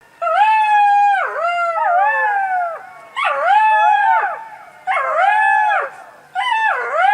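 Jackals howling: high, wavering wails in four bouts, each swelling up in pitch and sliding back down, with two or more voices overlapping at different pitches.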